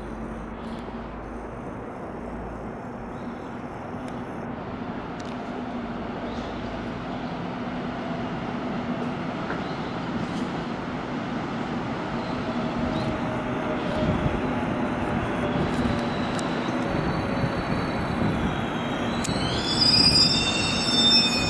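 Electric commuter train pulling into a station, its running noise growing steadily louder. A motor whine falls in pitch as it slows, then high-pitched brake and wheel squeals come near the end as it draws to a stop.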